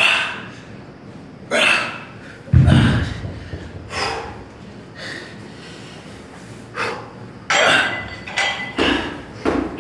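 A person's sharp, forceful breaths, about eight short bursts at uneven intervals, the exertion breathing of a workout. A heavy low thump comes about two and a half seconds in.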